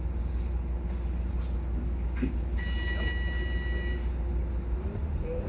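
Volvo double-decker bus heard from inside while under way: a steady low engine and road rumble with a drivetrain whine that rises in pitch near the end. About halfway through, a steady high electronic beep sounds for about a second and a half.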